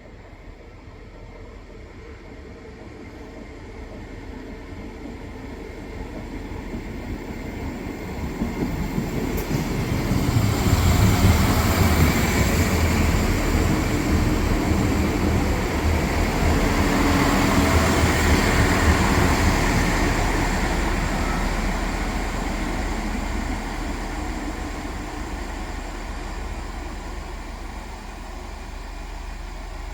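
A train moving along the station tracks, its rumble growing louder to a peak about ten seconds in, then slowly fading as it draws away.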